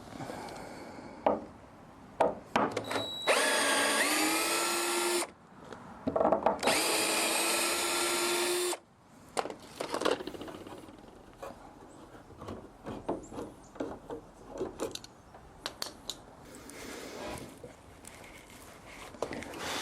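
Power drill running twice, about two seconds each, driving screws into wood. Each run spins up briefly, then holds a steady pitch. Scattered knocks and clicks of wood and tools being handled follow.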